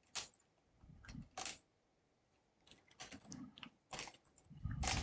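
Scattered faint clicks and short scrapes of a prying tool working at a laptop's thin plastic screen bezel, which is stuck down as if welded.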